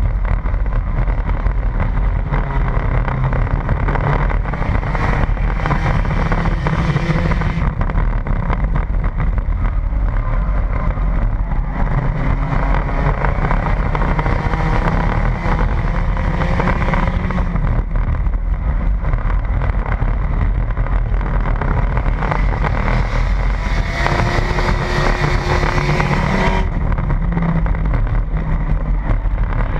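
Enduro stock car's engine heard from inside the cabin under racing, its revs climbing and falling through the laps, three times pulling hard for a few seconds, with wind and road noise underneath.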